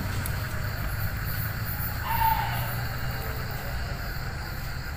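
Crickets and other night insects trilling steadily, over a low rumble. A short, slightly falling tonal note sounds about two seconds in.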